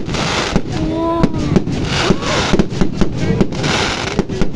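Aerial fireworks going off in quick succession: many sharp bangs mixed with bursts of hissing crackle.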